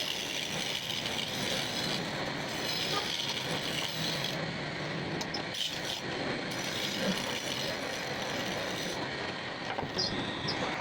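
Woodworking machinery running steadily, with a rough, even mechanical noise and some wood rubbing.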